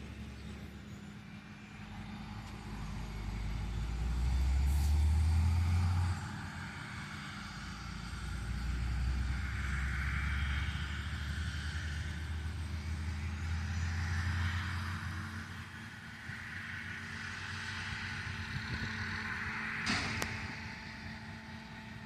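Heavy diesel farm vehicles working a corn silage harvest: a steady engine drone, with a deep rumble that swells and fades several times as machines pass, and one sharp click near the end.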